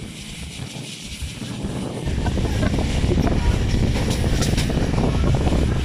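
Wind rushing over the microphone at an open window of a moving passenger train, over the train's running noise; the wind grows louder about two seconds in. A few short clicks come later on.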